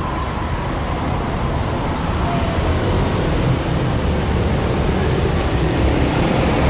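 Steady low mechanical rumble, slowly growing louder toward the end.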